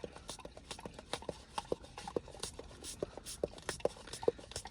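A black Labrador licking and lapping whipped cream from a small puppuccino cup, short wet licks at about four a second.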